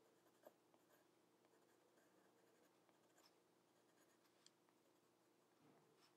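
Very faint scratching of a coloured pencil stroking across drawing paper, with a few light ticks, against near-silent room tone.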